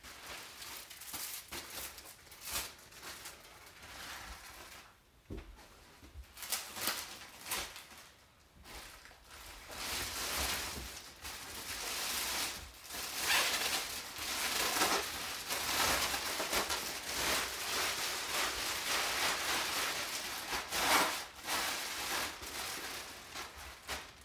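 Clear plastic wrapping rustling and crinkling as a padded mat is handled, smoothed and unwrapped, with a few sparse handling noises at first and steady crinkling through the second half.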